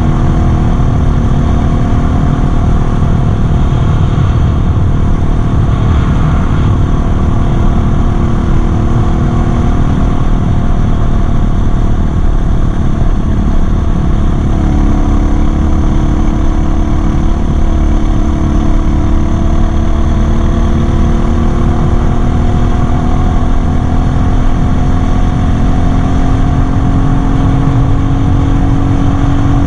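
A DB-36 dirt bike's engine running at cruising speed under a loud low rumble. Its pitch holds fairly steady, steps up about halfway through and climbs slowly near the end as the bike speeds up.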